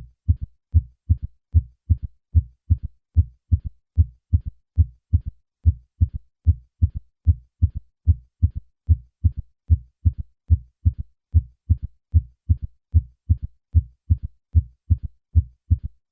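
Heartbeat as heard through a stethoscope: a steady run of short, low thuds repeating without pause, each normal lub-dub followed by an extra soft thud in early diastole. This is a third heart sound (S3), or ventricular gallop, which in patients over 40 points to left ventricular failure.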